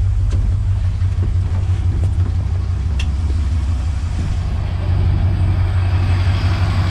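1977 Chevrolet C10 pickup's small-block Chevy V8 idling steadily with a low rumble. A higher rushing noise grows louder about four and a half seconds in.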